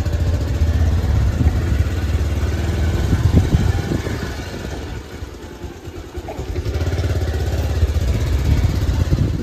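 Motorcycle engine running on a ride, easing off and going quieter for a second or two past the middle, then picking up again.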